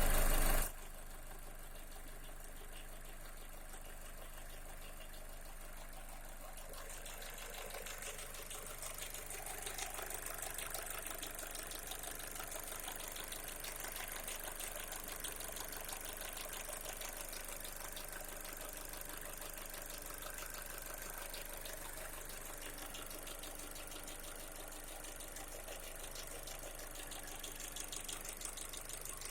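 Mitsubishi 4A92 1.6-litre inline-four running at idle with a fast, fine knocking from the timing-chain end, louder for a while after several seconds; the knock comes from the hydraulic timing-chain tensioner, whose oil passage was clogged with dirt. A short loud noise at the very start.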